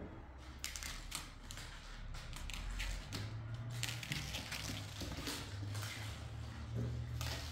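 Irregular rustling, light clicks and taps of Bengal kittens batting small toys about on a hard tiled floor, over a low steady hum.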